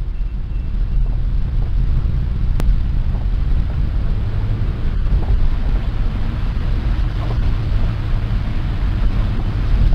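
Steady low rumble inside a city bus cabin at speed on a rain-soaked road: engine and tyre noise with a hiss of spray, and a single sharp click a little over two and a half seconds in.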